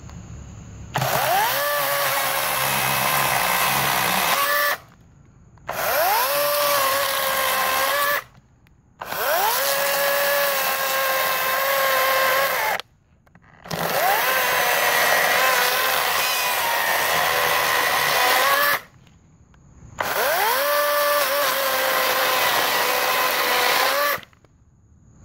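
Greenworks 16-inch 40-volt GMax brushless cordless chainsaw running in five bursts of several seconds each. Each burst spins up with a rising whine, holds a steady electric motor-and-chain whine, and cuts off sharply.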